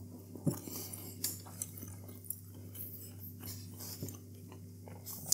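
A person chewing a mouthful of pastry bake close to a clip-on microphone: soft, irregular mouth clicks, over a steady low hum.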